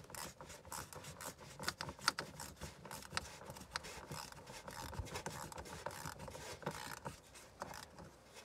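Engine cover being fitted back into place by hand: irregular scraping and rubbing against its mounts, with many small clicks and knocks.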